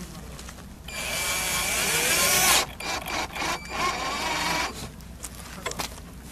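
Cordless drill running into a plywood drawer. A motor whine climbs in pitch for about a second and a half and stops sharply. A few shorter, stop-start bursts of the drill follow, then light clicks.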